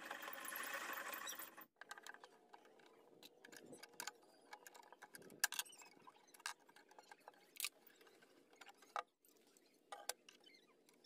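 Workshop handling sounds: a brief rush of noise that cuts off suddenly, then scattered light clicks and taps.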